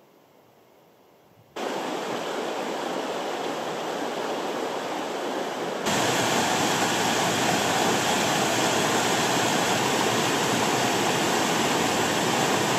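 Rushing water of a rocky river running in white-water rapids, a steady rush that starts suddenly about one and a half seconds in and gets louder about six seconds in.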